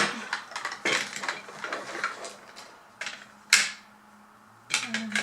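Small plastic toy pieces clicking and clattering as they are handled and put into a plastic toy car, with one sharper knock about three and a half seconds in.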